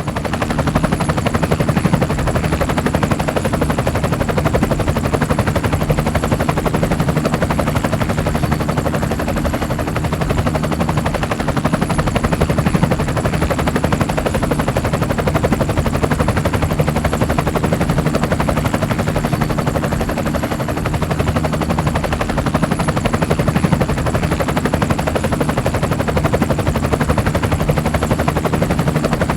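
Helicopter rotor blades chopping rapidly and evenly over a steady engine hum, loud and close.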